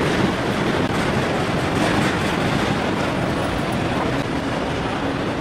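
Steady, loud ambience of a busy exhibition hall: indistinct crowd noise with no clear voice standing out, cutting off suddenly at the end.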